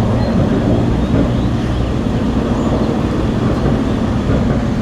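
Steady, loud low rumble of running engines, with a few steady low tones and no break or change.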